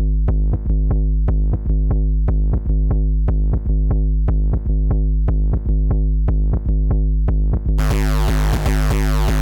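Electronic drum-machine and synthesizer loop, with sharp hits about three times a second over a held pitched bass pattern. About three-quarters of the way through it turns suddenly harsh and gritty as bit-crushing distortion is applied.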